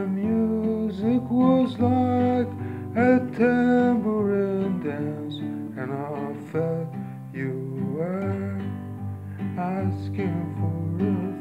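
Acoustic guitar strummed in steady chords while a man sings along with long, sliding held notes but no clear words.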